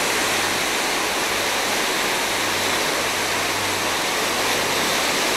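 Steady rushing of churning seawater along the side of a moving cruise ship, with a faint low hum underneath.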